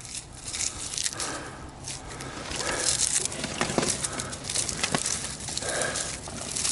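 Shaggy cedar bark being pulled and stripped from the trunk by hand: dry fibrous rustling and tearing, with many small crackles and snaps.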